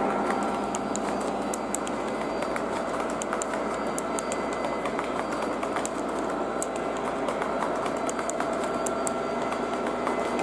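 O gauge three-rail model train's box cars and caboose rolling past on the track: a steady rolling rumble with scattered light clicks.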